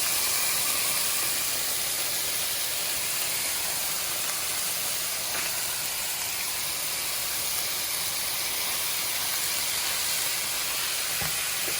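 Rough-cut thick bacon and diced ham sizzling steadily in a frying pan.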